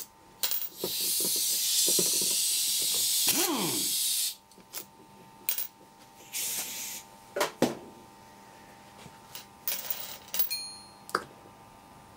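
Compressed air hissing from a pneumatic impact wrench for about four seconds, ending in a short falling whine, then a second brief hiss. Metal clinks and knocks of loose screws and valve parts on a steel bench follow.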